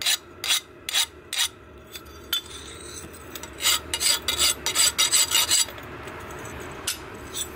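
Hand file scraping across the steel edge of a forged leaf-spring axe head in quick strokes: about four in the first second and a half, a pause, then a run of about six more, and two single strokes near the end.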